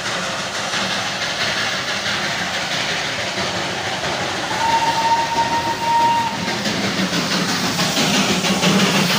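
Darjeeling Himalayan Railway steam locomotive passing close by on street track, a steady noisy rush of steam and running gear. Near the middle there is one steady whistle note lasting about two seconds.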